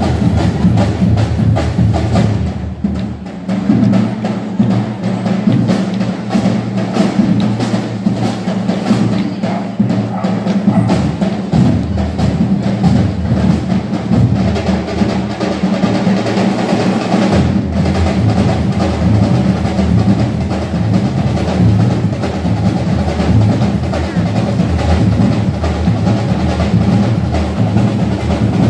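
Music with drums and percussion, playing steadily with a dense beat.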